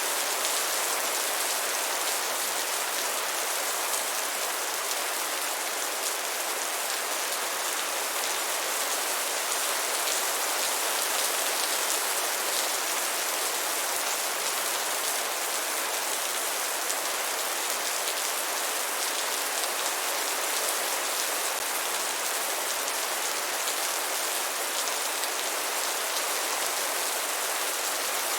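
Steady rain falling, an even hiss of many fine drops that holds constant throughout.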